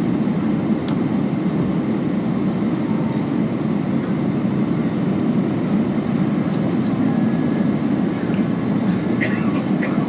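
Steady airliner cabin noise heard from a window seat: the low, even roar of the jet engines and airflow during the descent to land.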